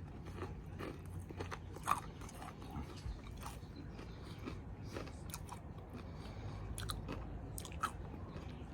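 Someone biting and chewing crisp fried chicken-skin cracklings: irregular crunches, the sharpest about two seconds in and near the end.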